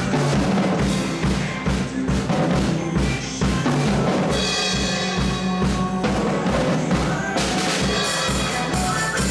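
Acoustic drum kit played to a steady beat, with the bass drum pulsing regularly under snare and cymbal hits, over a recorded pop-rock backing track.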